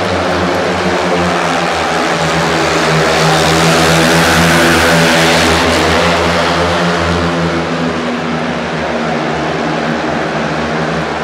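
Speedway bikes' 500 cc single-cylinder methanol engines racing round the track in a pack, a loud, steady engine drone that swells about four to five seconds in as the bikes pass nearest and then eases off.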